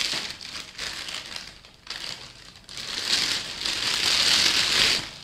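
Thin plastic bag crinkling and rustling as a camera lens is pulled out of it, uneven at first, then loudest and continuous over the last two seconds.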